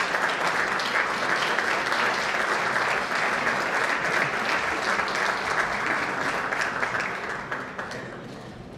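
Audience applauding: a dense, steady clapping of many hands that fades away near the end.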